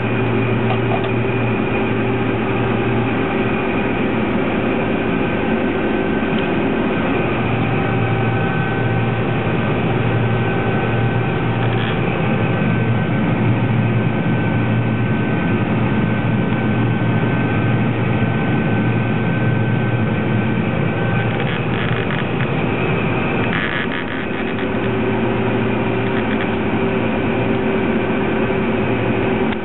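John Deere 9750 STS combine harvester running steadily while harvesting wheat, a constant machine drone with a steady low hum. A thin high whine runs through the middle, and a brief rattle comes about three-quarters of the way through.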